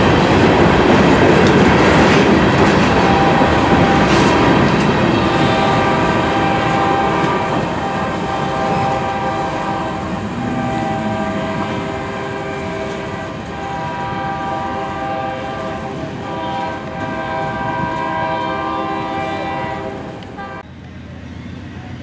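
A long freight train of covered hopper cars rolling past, its wheels clattering over the rail joints. From a few seconds in, several steady high tones ring over the rumble. The sound drops off abruptly near the end.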